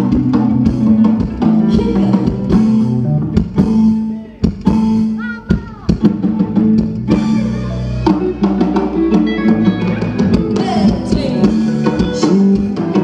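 Band music with drum kit, bass and guitar and a steady beat. About four seconds in it drops to scattered drum hits with a falling sliding note, and the bass comes back in about eight seconds in.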